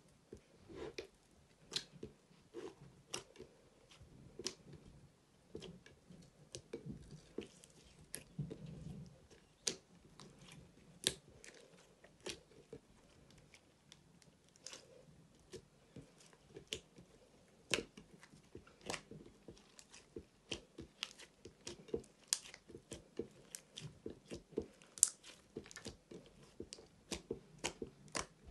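Clear slime mixed with eyeshadow powder and glitter being squished and kneaded by hand, giving a string of sticky clicks and pops. They come irregularly, one or two a second, and more often near the end.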